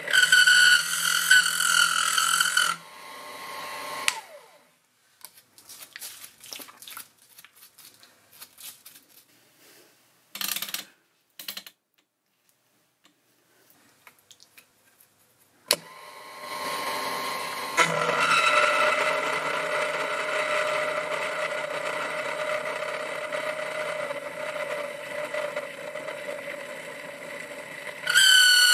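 End mill in a Proxxon FF 230 micro mill cutting into a steel die blank, giving a loud, high-pitched squeal at the start and again near the end. The machinist puts the squealing down to the cutting edges rubbing when the feed is too slow, and to chatter from the mill's lack of rigidity. In between the cut pauses with a few clicks, then the mill runs steadily with a lower, lighter cutting sound from about halfway on.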